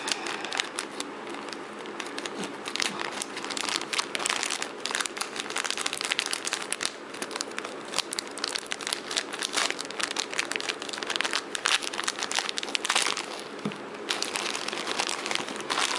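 Parcel packaging being crinkled and torn open by hand: a dense, irregular run of crackling rustles, with a short lull near the end.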